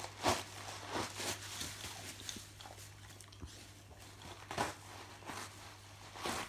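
A dog rummaging and biting in a heap of tissue paper, the paper crinkling and tearing in irregular bursts. The loudest bursts come just after the start, around a second in, and twice near the end.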